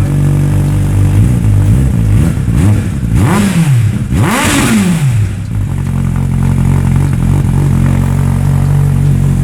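Suzuki Hayabusa's inline-four engine idling steadily, blipped a few times between about two and five seconds in, each rev rising and falling quickly before it settles back to idle.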